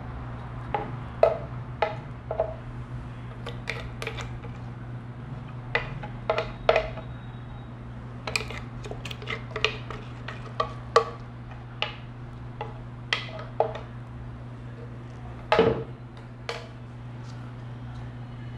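Irregular knocks and clicks of a plastic blender jar and kitchen utensils as thick blended avocado-seed and turmeric paste is tipped and tapped out into a straining cloth over a bowl, with a steady low hum underneath. The loudest knocks come as a pair about three-quarters of the way through.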